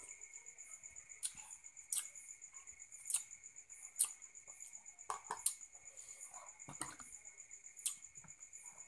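A metal spoon clicks and scrapes sharply against a balut eggshell and the dishes, about eight times, while crickets chirp steadily in the background.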